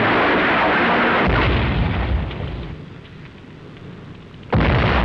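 Explosion and fire sound effect: a loud rushing roar that dies down about two and a half seconds in, then breaks out again suddenly about four and a half seconds in.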